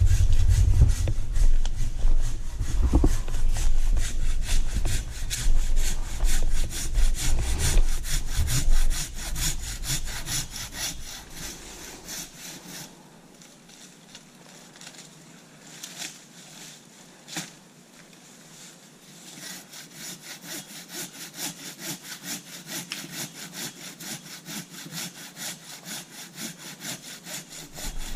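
Hand saw cutting through a fallen tree trunk in steady back-and-forth strokes. A vehicle engine idles underneath for about the first twelve seconds, then goes quiet.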